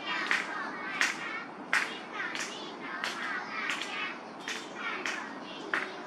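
Group of young children's voices with steady rhythmic hand clapping, about three claps every two seconds.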